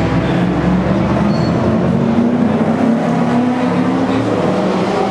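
Historic Formula 1 race car engines running hard, several engine notes overlapping at a steady loud level, their pitches shifting up and down as the cars rev.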